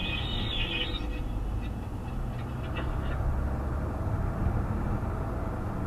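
Car driving with a steady low rumble, and a high-pitched squeal from the brakes that stops about a second in, with a few faint brief squeaks later on. The owner suspects a stone chip from loose road chippings caught between brake pad and brake disc.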